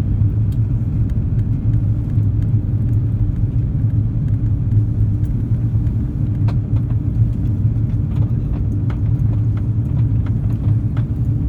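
Steady low drone of an Airbus A330-300's engines and airflow heard inside the passenger cabin during the approach, with a few faint clicks.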